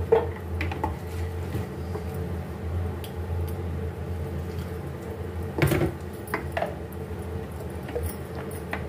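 Spoon and pan clinking and scraping against a steel pot as cooked chicken and vegetables are tipped onto boiled rice: a few scattered knocks, the loudest about two-thirds of the way through, over a steady low hum.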